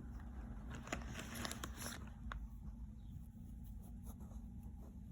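Faint handling noises, small clicks and rustles, mostly in the first two seconds, over a low steady hum.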